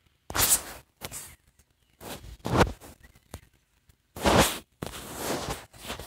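Several short rustling noises, each under a second, coming at irregular intervals with quiet gaps between them.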